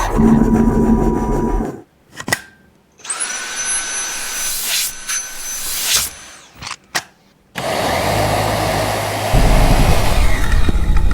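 Dyson V7 Trigger cordless handheld vacuum running in several short bursts with sharp clicks between them. In one burst a high whine rises about three seconds in and holds steady. The last burst gets louder and deeper partway through.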